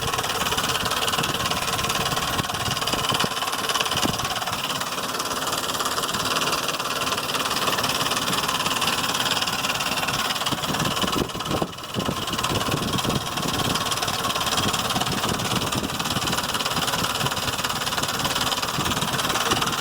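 2005 Ford Explorer's 4.0-litre V6 engine idling with a knocking, ticking noise that the owner suspects is either the lifters or the timing chain.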